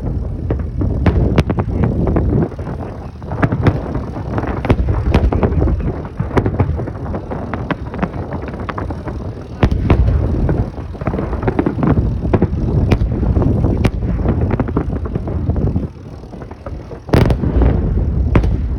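Holiday fireworks salute: a long run of sharp bangs and crackles over a steady low rumble, easing off briefly near the end before a strong bang.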